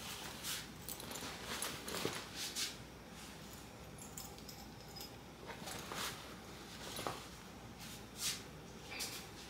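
Faint, scattered handling noises: a few soft knocks and rustles spaced a second or more apart, over a low room hiss.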